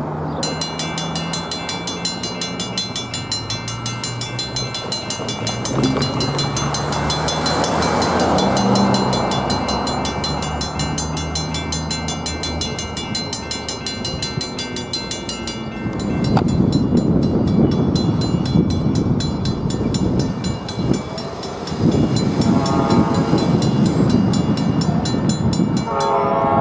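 Safetran mechanical railroad crossing bell ringing rapidly over a train's low engine hum. About halfway through the sound changes abruptly to the loud rumble of a passing train with the bell fainter behind it, and a train horn sounds twice near the end.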